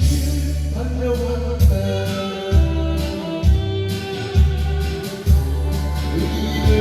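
Trot song's instrumental backing with a steady beat, sustained melody tones over a strong bass pulse, before the vocals come in.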